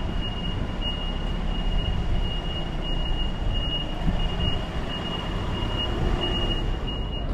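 Street ambience: a steady low rumble with a constant high-pitched whine held throughout.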